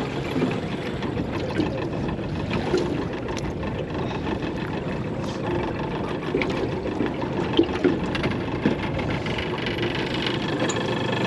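Small outboard motor running steadily as an aluminium dinghy trolls along, mixed with water noise.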